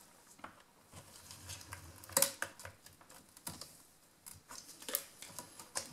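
Sparse, irregular clicks and light taps of a plastic card prying the glass panel of a MacBook Pro display loose from its adhesive, the sharpest about two seconds in.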